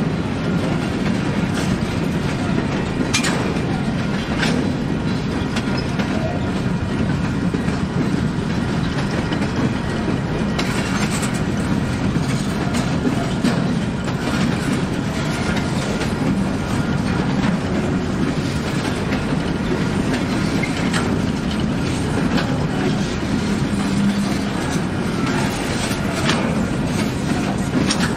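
Freight train rolling on the rails in a steady, continuous rumble, with occasional sharp clicks from the wheels.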